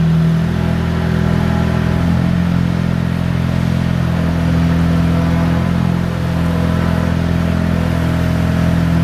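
Engine of a Terex Telelect C5050 crane truck running steadily, its note shifting about two seconds in and dipping briefly near six seconds.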